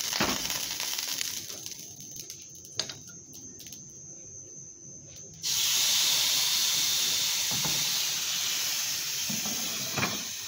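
A hot cast-iron grill pan hissing with olive oil. About halfway through, a salmon fillet is laid in and a loud sizzle starts suddenly, then carries on, slowly easing.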